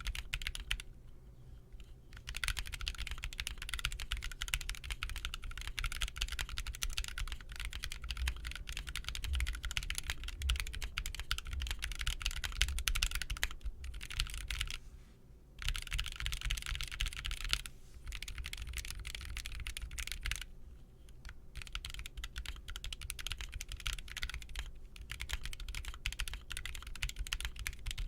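Mechanical keyboard typing: rapid continuous runs of keystrokes. The typing stops briefly about a second in, about halfway through and about two-thirds of the way through.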